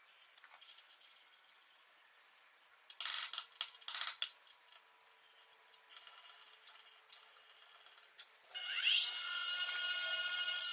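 Short metallic clicks and knocks from workshop parts being handled. Then, near the end, a power tool or machine starts up with a quick rising whine and keeps running steadily.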